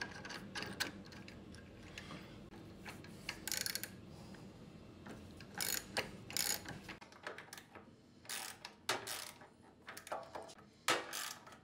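Ratchet socket wrench clicking in short bursts, with clinks of metal tools, as the nuts on a servo motor's mounting bolts are tightened.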